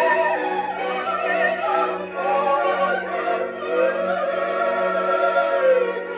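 Opera from a 1932 Polydor 78 rpm shellac record, a soprano voice with orchestra, played on an HMV 163 wind-up acoustic gramophone.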